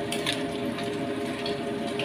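Noodles and clams bubbling in boiling water in a stainless steel wok, with a metal spatula clicking against the pan a couple of times as the noodles are stirred and lifted. A steady hum runs underneath.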